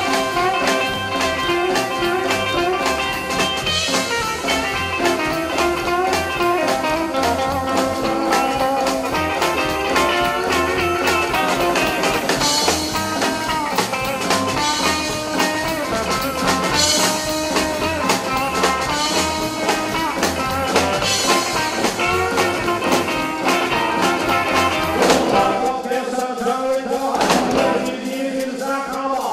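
Live rockabilly band playing: electric guitars over an upright double bass, with a steady driving beat. Near the end the bass drops out briefly.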